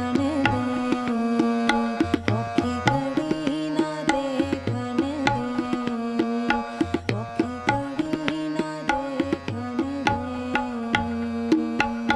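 Harmonium and tabla playing shabad kirtan: a sustained harmonium melody over steady tabla strokes, the bass drum's low tones sliding in pitch.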